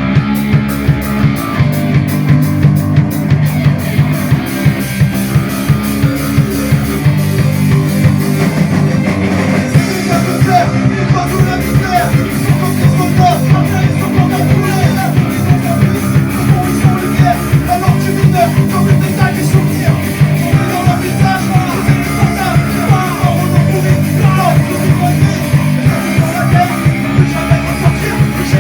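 A rock band playing live, loud and continuous, with a steady, driving drum beat.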